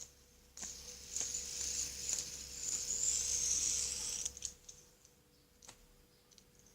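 Fidget spinner spinning, its bearing giving a high whirring hiss for about three and a half seconds, with light clicks of fingers handling it. Then quieter, with a few more clicks near the end.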